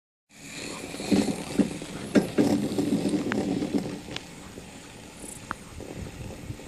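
Knocks, clunks and rattles on a riding chairlift, a close-set run of them over the first four seconds, then a quieter steady rustle with a few single ticks.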